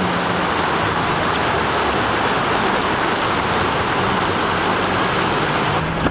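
A steady rushing noise with a faint low steady hum underneath, starting and stopping abruptly.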